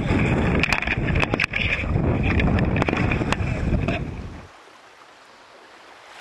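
Wind rushing over the microphone and water splashing around a kayak as a hooked fish thrashes at the surface, with several sharp knocks. The sound fades out about four seconds in.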